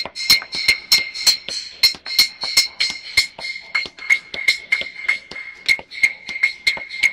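Instrumental music: a quick, even pattern of sharp percussive clicks over a steady high held tone.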